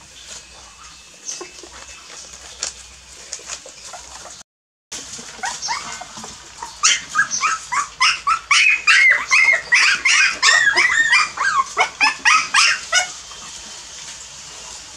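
Young puppies yelping and whimpering in a rapid string of short, high-pitched cries, loudest in the second half. Before that there are only faint scattered ticks and rustles.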